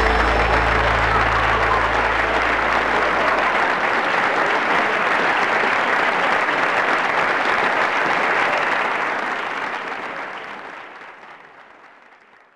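Applause, a steady dense clapping that follows the end of an accordion tune and fades out over the last few seconds.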